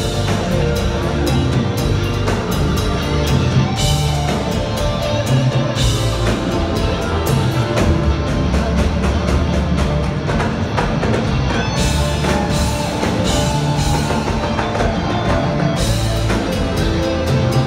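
A live rock band playing on stage, with drum kit, cymbals, guitar and keyboards, recorded from the audience on a phone.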